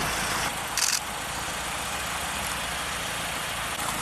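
A vehicle engine idling steadily, with a brief high hiss just before a second in.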